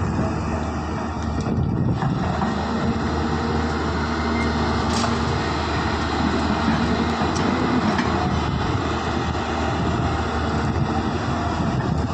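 Heavy diesel engine of a tracked excavator running steadily while it digs and loads soil, with a few faint clinks from the machine at work.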